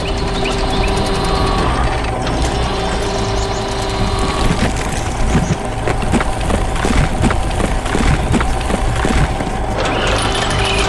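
Excavator sound effects: an engine running steadily under a clatter of rapid mechanical clicks and clanks as the digging arm works, busiest in the middle.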